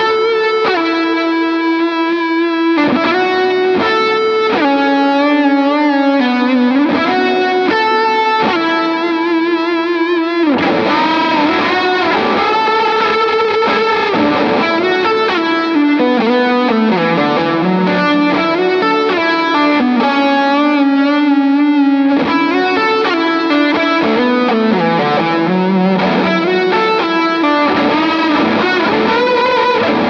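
Electric guitar played through the JET Pedals Revelation Reverb pedal on its plate reverb setting: chords and single notes ring out with long, washing reverb tails. About ten seconds in the playing grows busier, with more moving notes over the sustained reverb.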